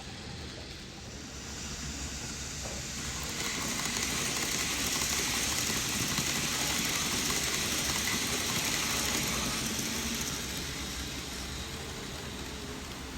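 N gauge model freight train running past, its rolling noise on the track growing louder and then fading away over about ten seconds, with a thin steady whine while it is close.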